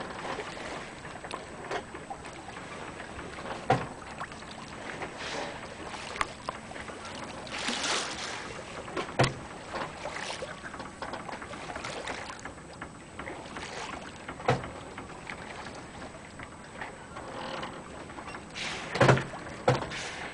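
Steady wind and sea noise on a sailboat's deck, broken by a few short sharp knocks, the loudest near the end.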